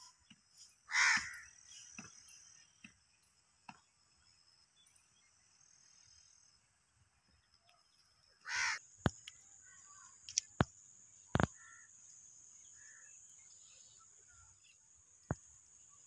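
Alexandrine parakeet giving two loud, harsh squawks, each about half a second long, about seven and a half seconds apart. A few sharp clicks fall after the second squawk, over a faint steady high-pitched drone.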